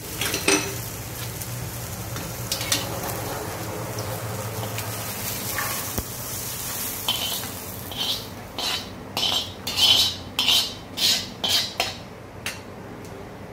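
Oil-roasted green chickpeas, field beans and peas sizzling on a hot iron tawa as a steel spoon stirs them. Past the middle comes a run of about ten quick scrapes as the spoon sweeps the beans off the tawa into a steel plate.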